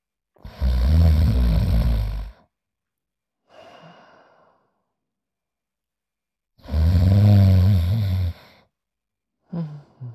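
Cartoon character snoring: two long, loud, rasping snores, each about two seconds, with a softer breathy exhale between them and a short breath near the end.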